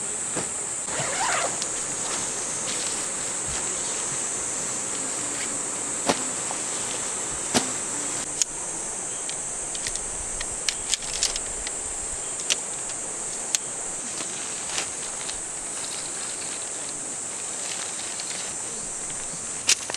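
Steady, high-pitched summer insect drone over the even rush of a valley stream, broken by scattered sharp clicks and knocks.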